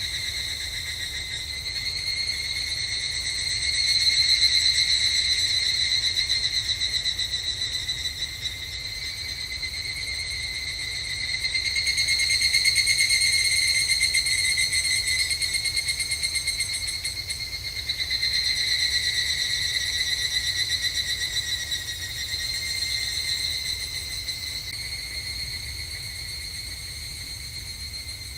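Evening cicadas (higurashi, Tanna japonensis) calling, their rapid pulsing trills swelling and fading several times in long overlapping waves.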